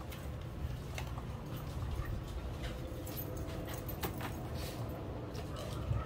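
Faint scattered clicks and light knocks of hands working on a washing machine's casing while the cover is being taken off, over a steady low rumble.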